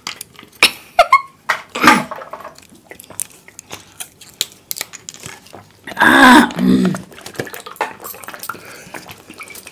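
Small plastic Maaza bottles handled and their caps twisted off, with scattered clicks and crackles of plastic, while two people gulp the mango drink. A loud, short voice-like sound comes about six seconds in.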